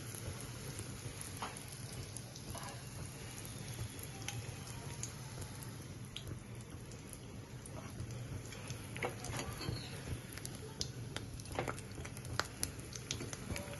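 A samosa deep-frying in hot oil: a steady sizzle with many small scattered pops and crackles, a few more of them in the second half.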